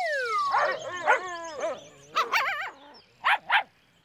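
Dog sound effects: a run of wavering whines and whimpers, then two quick short barks near the end. A falling cartoon whistle fades out at the very start.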